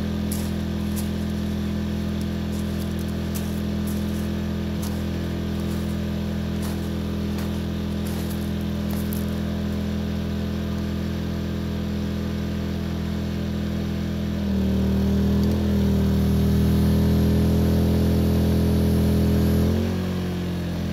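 Portable generator running steadily. About fourteen seconds in it speeds up and gets louder for about five seconds, then settles back, the sign of an electrical load, a heat gun, being switched on and off.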